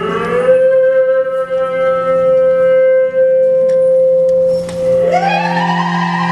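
Live music: a melody instrument holds one long note, then slides up to a higher held note about five seconds in, over a steady low drone.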